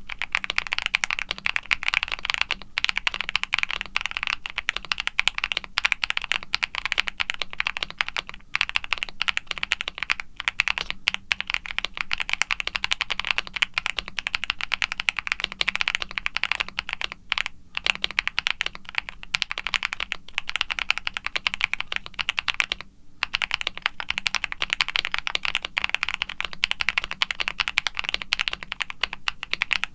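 Continuous typing on a custom mechanical keyboard: an aluminium Luminkey75 with a polycarbonate plate, full foam dampening, lubed Akko Creamy Lavender Pro tactile switches and GMK doubleshot ABS keycaps, giving a stream of rapid keystrokes with brief pauses about 17 and 23 seconds in.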